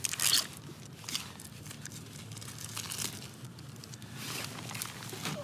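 Plastic wrapper of a string cheese stick being torn open and peeled off by hand, crinkling. It starts with a sharp tearing burst, then comes softer intermittent crinkles.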